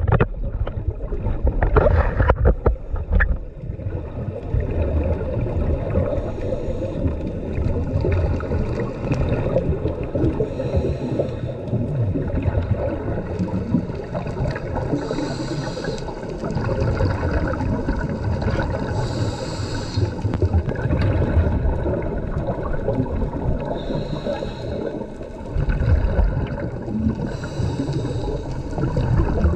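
Scuba diver breathing through a regulator underwater: a hiss on each inhalation recurring every few seconds, and a low bubbling rumble of exhaled bubbles between breaths.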